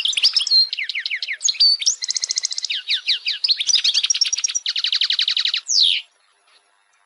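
European goldfinch song: a fast, twittering run of sweeping notes mixed with dry, buzzy trills, which stops abruptly about six seconds in.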